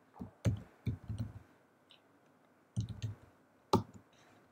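Keystrokes on a computer keyboard typing a command: a run of clicks in the first second and a half, another run about three seconds in, and a single click near the end.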